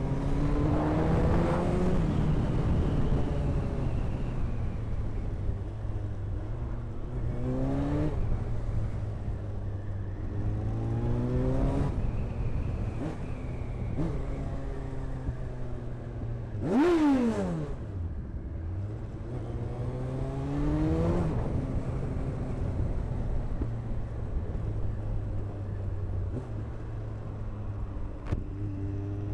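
Kawasaki ZX14 inline-four engine accelerating hard through the gears several times, rising in pitch and then dropping back at each shift. About 17 s in there is one quick rev that rises sharply and falls straight back.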